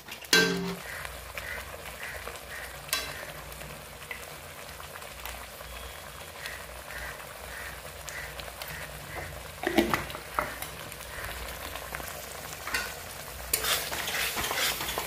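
Mustard-garlic masala paste sizzling as it is fried down in a kadhai, with a spoon stirring and scraping it and a few sharp knocks of the spoon against the pan. The steady sizzle marks the masala being fried (bhuna) with a little water and salt until it colours.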